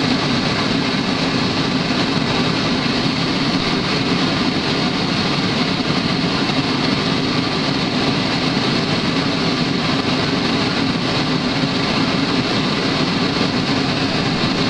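Two homemade propane forge burners with MIG-tip gas jets, burning side by side at about 7 PSI with a steady, even rush of flame noise.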